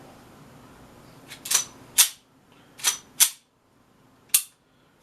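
TTI Pit Viper airsoft gas blowback pistol's slide and action being worked by hand: five sharp clacks, two pairs followed by a single one.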